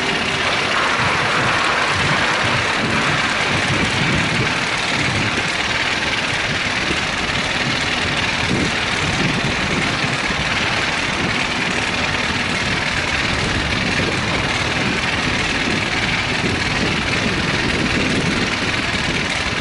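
Playing card flapping against the spokes of a moving bicycle, a steady motor-like buzz, over a constant rushing noise from the ride.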